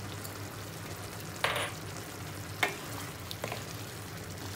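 Pan of moringa pods in tomato broth simmering, with a steady low hum underneath and three short knocks or scrapes of a utensil against the pan. The loudest of these comes about one and a half seconds in.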